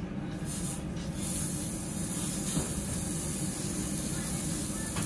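Meat sizzling on a hot yakiniku grill, a steady hiss that grows louder about a second in. There is a single sharp click near the end.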